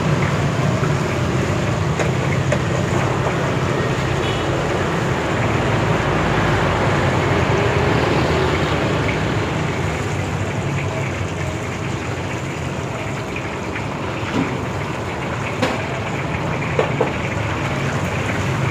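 Chicken in kremes batter deep-frying in a wok of hot oil, sizzling and bubbling steadily, over a steady low rumble. A few sharp clicks come near the end.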